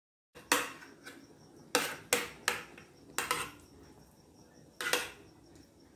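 A metal utensil clinking and scraping against a metal baking pan while mashed potato is spread in a layer, with about seven sharp, irregular taps that ring briefly.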